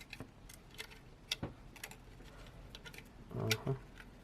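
Scattered light clicks and taps of small phone parts and tools being handled during a smartphone repair, with a louder knock about three and a half seconds in.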